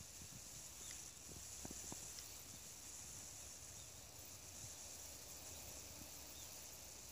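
Faint outdoor ambience: a steady high-pitched hiss, with a couple of faint ticks in the first two seconds.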